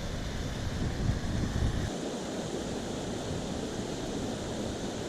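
Waterfall and river water rushing steadily. Wind buffets the microphone with a low rumble for about the first two seconds, then eases.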